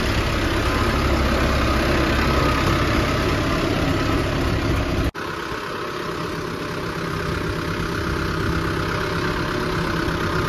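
Mahindra Arjun 605 DI MS 4x4 tractor's four-cylinder diesel engine running steadily. About five seconds in it cuts abruptly to the engine heard from the driver's seat, with much less low rumble.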